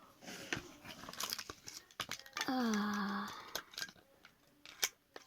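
Crinkling and rustling of plastic toy packaging with many small clicks of plastic pieces being handled. About halfway through, a child's voice makes one short drawn-out sound that falls in pitch.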